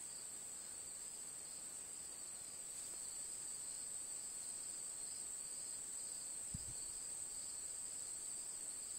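Insects trilling in a steady, high-pitched drone, with a brief low thump about six and a half seconds in.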